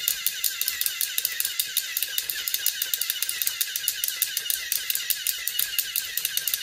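Battery-powered toy train engine running, its motor and gears making a rapid, even clicking of several clicks a second.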